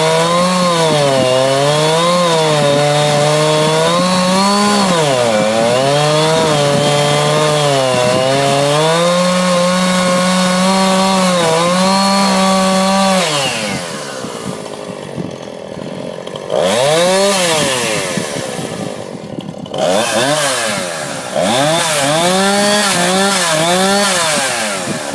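Chainsaw engine ripping lengthwise through a log under load, its pitch wavering as the cut proceeds. About halfway through it comes off the load and is revved up and down several times.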